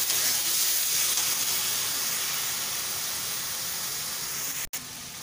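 Masala of onion, tomato paste and ground spices sizzling in hot oil in a steel kadai as it is fried down, a steady hiss that slowly fades. It breaks off for an instant near the end and comes back quieter.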